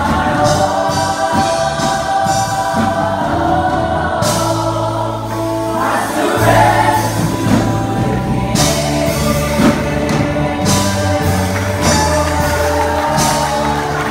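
Live gospel worship music: voices singing together over a band with drums, cymbals and a steady bass line.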